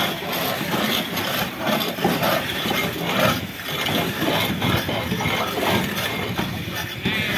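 Long-handled scraper rasping barnacles and shells off a boat's hull in rough, repeated strokes about twice a second.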